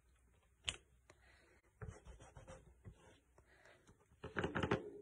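Hands handling cardstock and craft supplies: paper sliding and rustling, a single click about a second in, then a quick run of louder light taps and clicks near the end.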